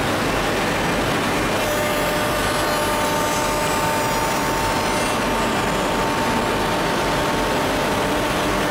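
Homag BMG 512 five-axis CNC machining centre working a wooden workpiece: a steady machine noise, with a steady whine from the running spindle that comes in about a second and a half in and stops shortly before the end.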